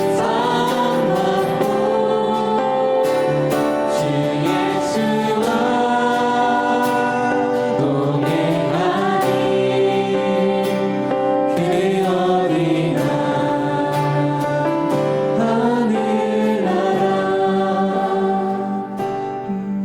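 A group singing a Korean worship song together, with instrumental accompaniment keeping a steady beat.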